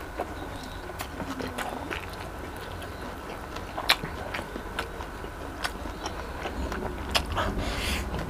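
Close-miked eating of fried chicken wings: chewing with wet mouth clicks and smacks, the sharpest click about four seconds in and another just past seven seconds.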